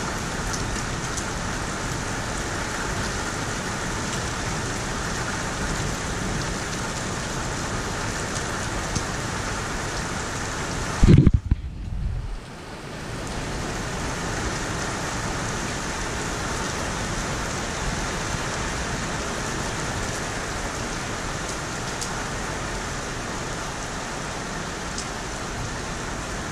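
Hail and heavy rain pelting a flat terrace surface and tiled roofs, a steady hiss with scattered sharp ticks of hailstones striking. About eleven seconds in comes a loud thump and rumble, then a second or so of muffled quiet, as the camera is handled and moved.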